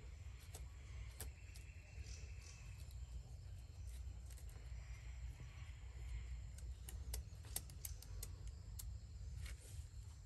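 Scattered light clicks and taps of wooden parts as a wooden-vaned blower impeller is fitted onto its stick axle by hand, more of them close together near the end, over a steady low background rumble.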